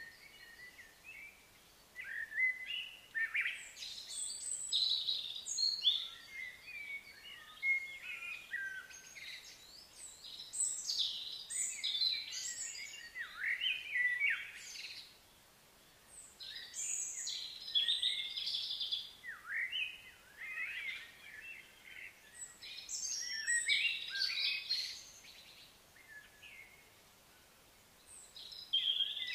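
Several birds chirping and calling in a busy, overlapping chorus of short high phrases, with brief lulls now and then.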